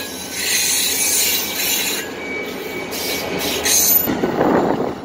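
Wheels of a passing RCPE diesel locomotive squealing and hissing on the rail, fading out about two seconds in as the trailing unit goes by. Near the end a louder, duller rush of noise takes over.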